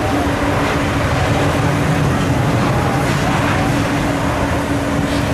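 Boeing 787-9 jet engines (Rolls-Royce Trent 1000 turbofans) at takeoff thrust during the takeoff roll: a steady, dense roar heard from across the airfield, with a steady low hum underneath.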